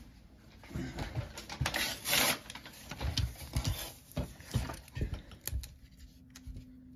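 A sheet of paper being handled and laid flat on a wooden tabletop: rustling with a brief louder crackle about two seconds in, and scattered light taps and knocks.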